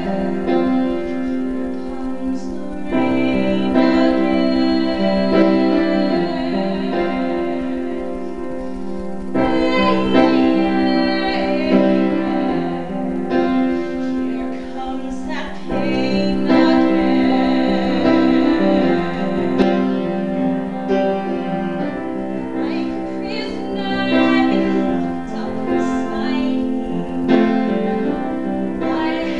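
Piano accompaniment with female voices singing a musical-theatre song.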